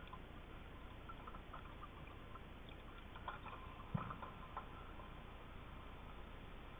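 Underwater ambience picked up by a submerged camera: a faint steady hiss with scattered soft clicks and ticks, and one dull thump about four seconds in.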